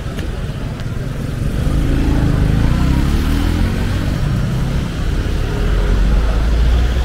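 Road traffic passing close by: a steady low rumble, with a vehicle engine growing louder about a second and a half in, its pitch shifting as it goes past, and a heavier low rumble swelling near the end.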